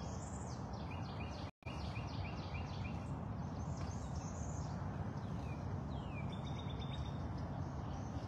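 Wild songbirds calling outdoors: repeated short chirps and quick downward-sliding notes, including a run of about six quick notes two to three seconds in, over a steady low background hiss. The sound cuts out completely for a split second about a second and a half in.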